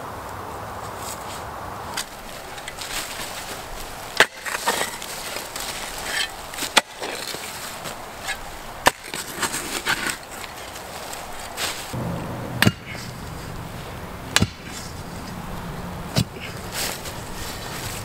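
Hand tool chopping into and scraping the ground while a hole is dug by hand: about seven sharp strikes spaced a second or two apart, with gritty scraping between them.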